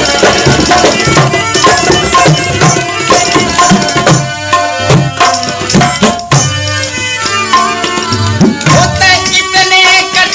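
Folk-music instrumental interlude: tabla playing dense strokes over a steady melody instrument. A few of the low drum strokes slide upward in pitch in the second half.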